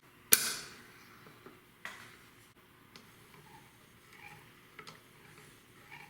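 Handling of a knife sharpener: a sharp clack that rings briefly about a third of a second in, a fainter clack a second and a half later, then scattered light ticks.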